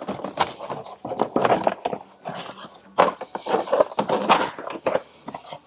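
Plastic interior trim pieces being pried loose and handled by hand: an irregular run of clicks, knocks and scraping, with the sharpest knocks about three and four seconds in.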